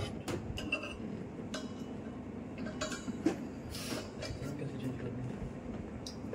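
Scattered light clinks and clicks of metal parts being handled, over a steady low hum, with a brief rushing noise about four seconds in.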